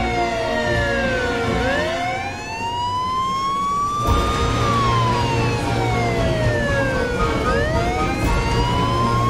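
Emergency vehicle siren wailing: its pitch falls slowly, then sweeps back up, twice over, with a steady low hum underneath.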